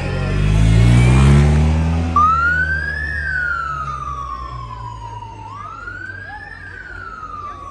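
A car engine revs hard as the car accelerates past, its pitch rising and loudest about a second in. Then a police siren wails in a slow rise and fall, twice.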